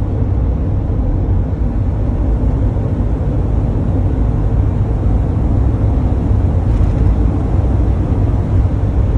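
Steady low rumble of a passenger van's engine and tyres on the road, heard from inside the cabin while it drives along.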